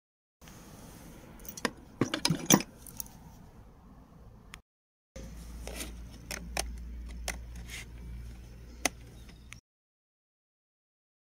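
Handling noises: scattered clicks and clacks of cables and connectors being handled, with a cluster of louder clacks about two seconds in. A second run of lighter clicks plays over a low rumble, while a USB adapter is plugged into a laptop.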